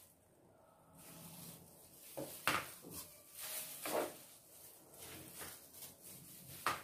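Soft kitchen handling sounds: a spoon scraping and tapping as avocado flesh is scooped from its skin, with a few short sharp knocks, then plastic-gloved hands tossing shredded salad in a bowl near the end.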